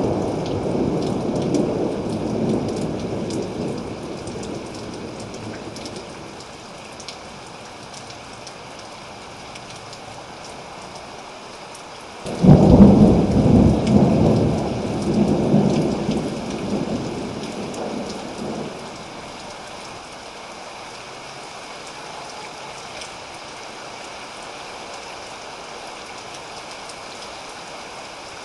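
Thunderstorm: steady rain on a surface, with a fading rumble of thunder at the start and a sudden loud thunderclap about twelve seconds in that rolls on for several seconds before dying away.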